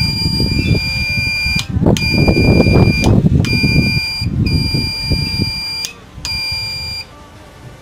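A power inverter's alarm buzzer sounding a high steady tone in long beeps of about one to one and a half seconds, with short breaks between them, until it stops about seven seconds in. Underneath is the rubbing and knocking of the metal inverter case being handled.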